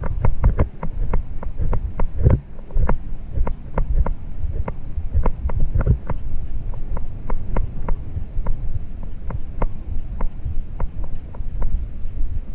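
Hoofbeats of a racehorse running on a dirt racetrack, heard from the rider's head-mounted camera: a rhythmic low thudding with rapid, regular sharp clicks.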